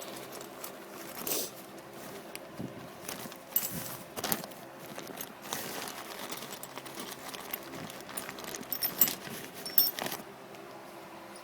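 Loose steel bolts and tips from a steering wheel puller set clinking and rattling as they are sorted through by hand, in irregular short clicks.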